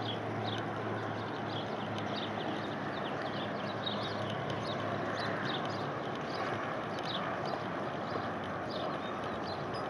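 Outdoor ambience: a steady background noise with many short, high chirps, one or two a second, and a low hum that stops about halfway through.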